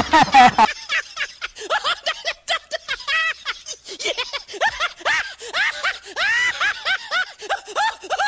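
Cartoon-style snickering laugh sound effect: many short, high chirps, each rising and falling in pitch, coming in quick runs. It follows a brief loud noise at the very start.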